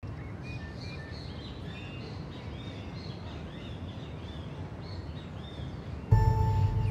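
Outdoor ambience of birds chirping over a steady low rumble. About six seconds in, music with sustained held tones comes in suddenly and louder.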